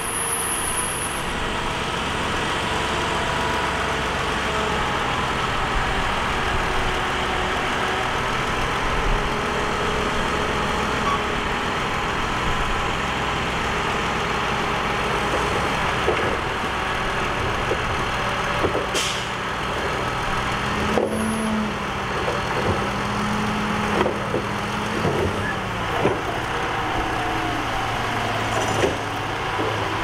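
Heavy earthmoving machine's diesel engine running steadily, with scattered knocks and clanks in the second half.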